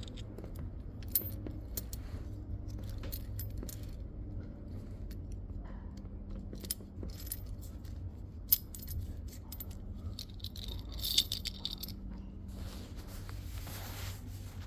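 Keys jangling and clicking as they are handled, with scattered sharp clicks, one louder click a little past eight seconds in, and a burst of jingling from about ten to twelve seconds in. No engine runs.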